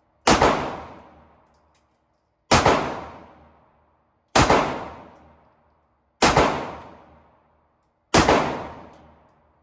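Five single gunshots about two seconds apart, each echoing for about a second.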